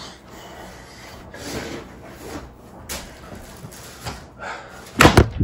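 Cardboard boxes and packing material being handled: scattered rustling, soft knocks and a sharp click about three seconds in. About five seconds in, a sudden run of loud thumps starts.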